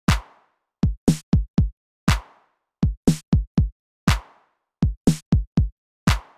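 Intro music made only of an electronic drum beat. A deep, longer-ringing hit every two seconds is followed by a quick run of four short hits, and the pattern repeats with no melody.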